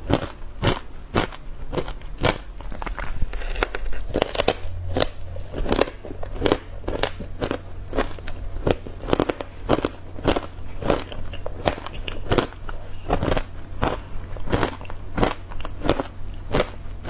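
Close-miked crunching of matcha-powdered ice chunks being bitten and chewed, a steady run of crisp crunches about two a second.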